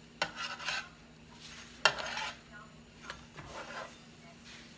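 Spatula scraping and tapping on a stovetop griddle as flour tortillas are turned and slid about: a few short scrapes, with a sharp clink about two seconds in.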